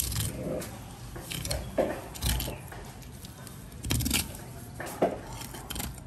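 Fillet knife cutting along the backbone and rib bones of a large green parrotfish, in a series of short scrapes and clicks, the sharpest about two seconds and five seconds in.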